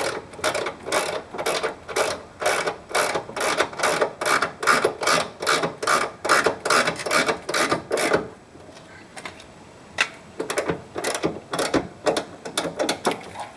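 Hand socket ratchet clicking as it runs nuts down onto the radius rod's crossmember studs, drawing the new bush in. It goes at about three to four clicks a second for roughly eight seconds, pauses, then clicks again in a shorter, looser run near the end.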